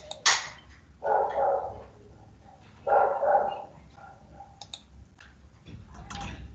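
A dog barking in two bursts about two seconds apart.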